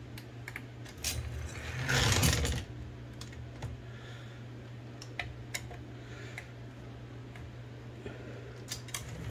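Olivetti Linea 98 typewriter carriage and gear mechanism being worked by hand: scattered small metallic clicks, with a louder half-second rattling whirr about two seconds in, over a steady low hum. It is being run to check that it moves without noise after the broken guide gear was replaced.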